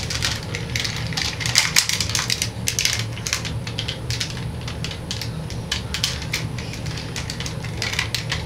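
Irregular small clicks and rattles of toys being handled and knocked about, over a steady low hum.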